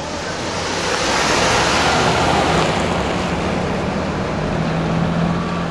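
Car driving through standing floodwater: a loud rushing hiss of tyre spray that swells over the first couple of seconds and then eases, with a steady low engine hum underneath from about halfway through.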